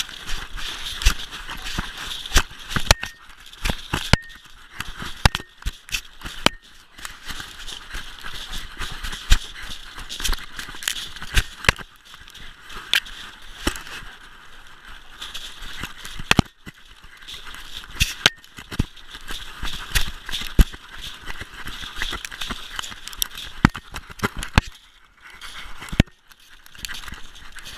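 German shepherd running through snow, heard from a 3D-printed camera mount on its collar: paws crunching in snow, with frequent irregular sharp knocks and rattles as the mount jostles on the collar.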